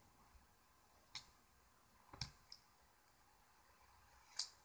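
Scissors snipping a thin strip of paper: about four faint, sharp clicks, the loudest near the end.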